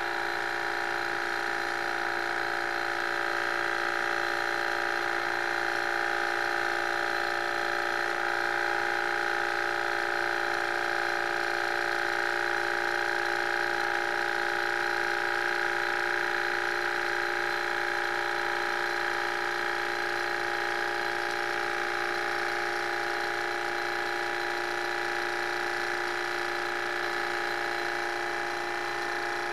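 Small model Stirling engine running fast, its pistons, cranks and brass flywheels making a steady whirring buzz that grows a little louder midway and then eases slightly.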